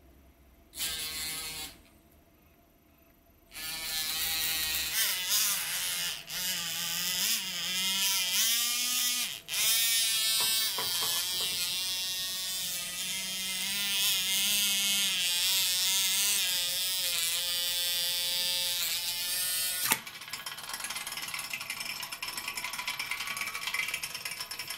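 Small 3V DC motor of a 3D-printed mini torpedo spinning its little propeller: a short burst, then a long electric whine that wavers in pitch as the load changes, turning into a harsher, noisier buzz about twenty seconds in.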